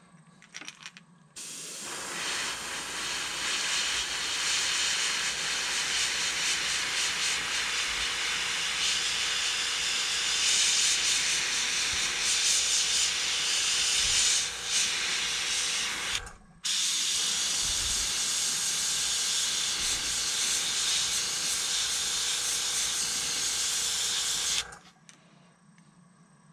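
Steady hiss of rushing air, cutting out for a moment about two-thirds of the way through and stopping abruptly near the end.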